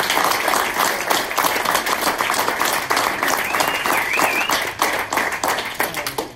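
Audience applauding, many hands clapping, with a brief high rising-and-falling whistle or whoop about three and a half seconds in; the clapping dies away near the end.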